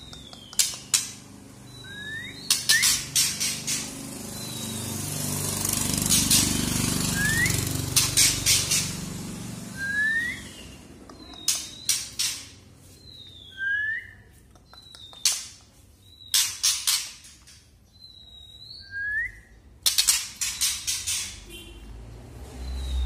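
Juvenile male white-rumped shama calling: short high whistles, some falling and some slurred upward, alternating with bursts of rapid dry crackling clicks, the 'kretekan' of a young bird learning to sing. A low rumble swells and fades in the background in the first half.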